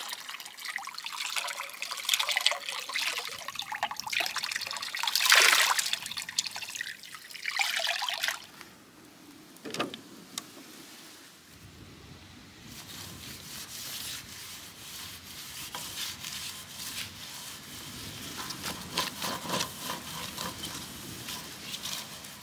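Water running from a metal spout into a concrete trough, splashing as hands are washed under it, loudest about five seconds in. It stops about eight seconds in, and quieter rubbing and rustling of a tissue wiping a slatted camping table follows.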